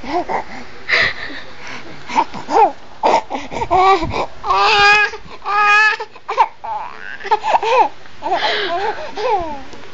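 Baby laughing and babbling in short high-pitched bursts, with a longer wavering, pulsing laugh near the middle.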